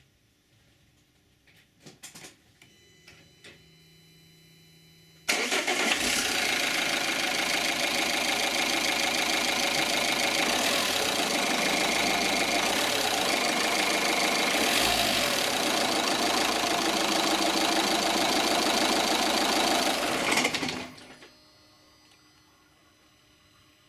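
Opel 1.9 CDTi four-cylinder common-rail turbodiesel started about five seconds in, catching at once and idling steadily for about fifteen seconds, then switched off, dying away within half a second. The shutdown comes with a shudder and rattle that the owner puts down to a faulty throttle flap (fault code P1125).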